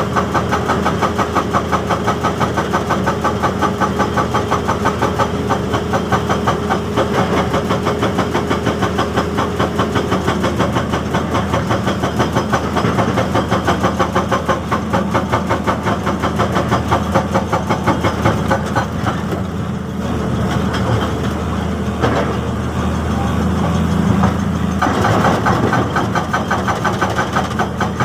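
Excavator-mounted hydraulic rock breaker hammering at rock in a fast, even train of blows over the excavator's running engine. The hammering eases briefly about two-thirds of the way through, then picks up again.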